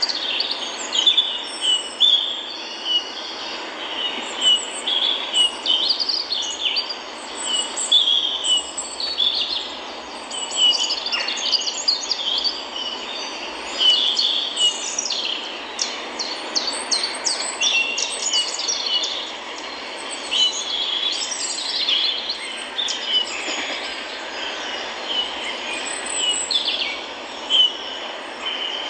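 Many small birds chirping and trilling all through, over a steady hiss.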